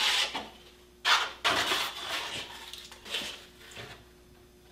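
Thin sawn poplar slices being handled and slid over the saw table: a few short scraping, rustling noises, the loudest at the start and about a second in.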